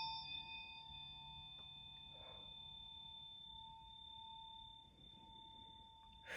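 Tuning fork ringing on after being struck: a clear steady tone with a high overtone above it, slowly fading away.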